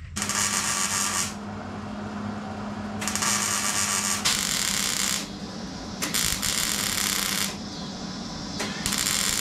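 MIG welding arc crackling in about five short bursts, each a second or so long with brief pauses between, as seams in the thin sheet-steel trans tunnel and floor pan of a car body are stitch-welded.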